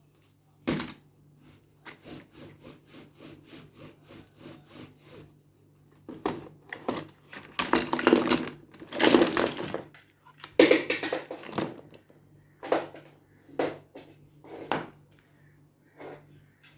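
Toy packaging being handled for an unboxing: a sharp tap, then a run of light quick taps or scratches at about four a second, then louder rubbing and scraping, then a few separate taps.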